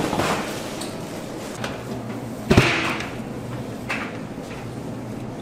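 Two sharp knocks or thuds about two and a half seconds apart, the second louder, with a few lighter clicks between, over a steady low hum.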